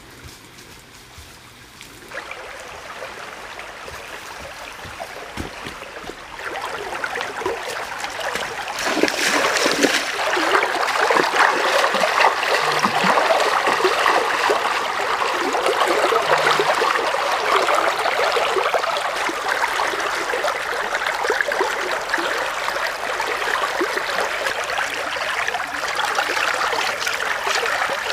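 Shallow stream running over rocks, with splashing from someone wading through it. It starts faint and grows louder over roughly the first ten seconds, then runs steadily.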